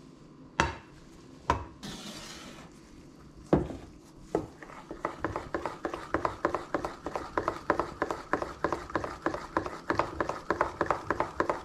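Pancake batter being whisked in a stainless steel bowl: quick, even clicks of the whisk against the metal, about four a second, starting about five seconds in. Before that, a few separate knocks of metal kitchenware.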